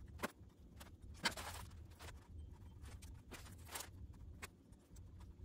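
Scattered light clicks and brief rustles of hands and pliers handling thin electrical wires, over a low steady hum.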